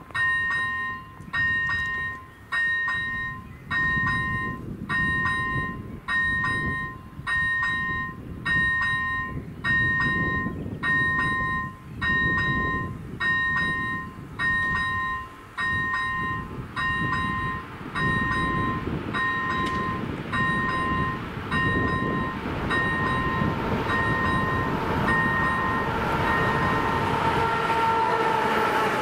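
A level crossing's electronic warning bell rings a two-tone ding about once a second. Under it, an approaching freight train hauled by an electric locomotive grows steadily louder, and its rumble covers the bell near the end as it reaches the crossing.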